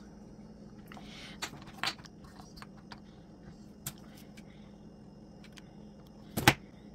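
Small painted wooden craft pieces being handled and pressed together on a wooden tabletop while being hot-glued: soft rustles and scattered light clicks, with one sharp knock about six and a half seconds in.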